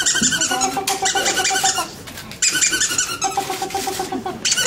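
A squeaky toy squeezed over and over, giving two runs of rapid, buzzy squeaks with a short break about halfway.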